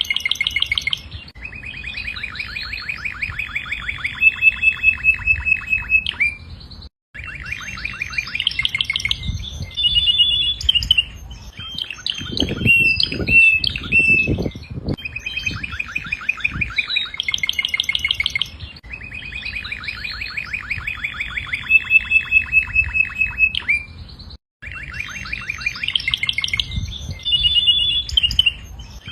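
Domestic canary singing a long song of rapid trills, rolls and chirps, with phrases repeating. The song cuts out completely twice for a moment.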